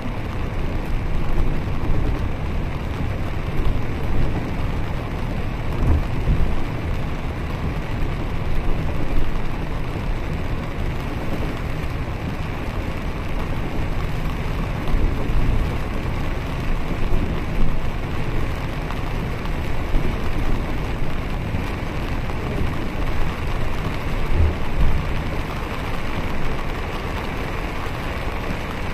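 Interior noise of a double-decker bus driving in rain, heard from the upper deck: a steady low engine and road rumble with rain noise over it and a few brief low thumps.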